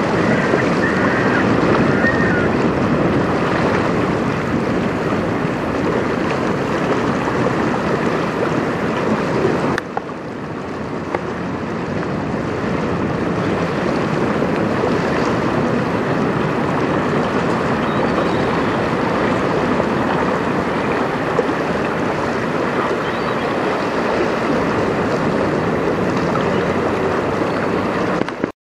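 A steady rush of wind on the microphone mixed with choppy river water washing, briefly dipping about ten seconds in.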